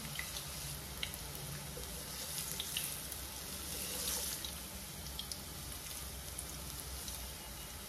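Spinach and gram-flour koftas deep-frying in hot oil in a kadhai: a steady sizzle with scattered sharp crackles, as a wooden spatula spoons oil over them.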